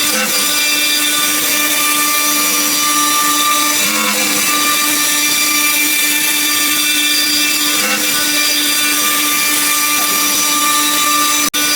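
CNC router spindle running and cutting: a steady whine with a dense high hiss, with slight swells about every four seconds. It cuts out for an instant near the end.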